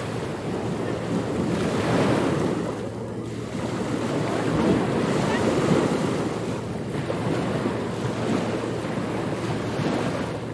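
Ocean waves breaking and washing up on a beach, a continuous surf noise that swells and falls back as each wave comes in.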